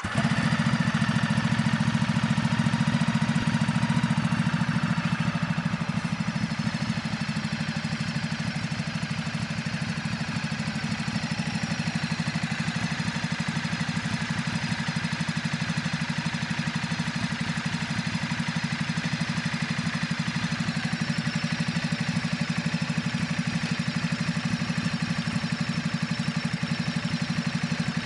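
Motorcycle engine idling steadily just after it has started, a little louder for the first five seconds or so before settling to an even idle.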